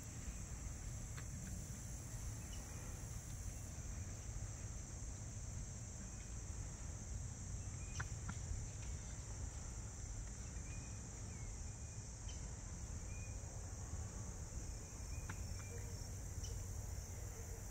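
Steady high-pitched drone of insects in the surrounding trees, over a low background rumble, with a few faint short chirps and ticks.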